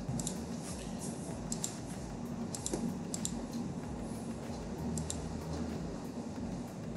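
Computer keyboard keystrokes and clicks in short scattered runs, over a low steady hum.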